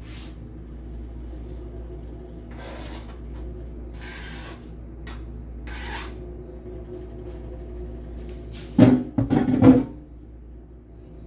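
A spoon scraping and stirring through food in a skillet, several short rasping strokes, then a burst of loud clanks of metal on the pan about nine seconds in, over a steady low hum.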